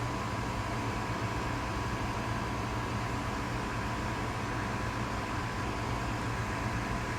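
Steady machine hum and hiss, with a steady high tone and a low drone and no knocks or thumps.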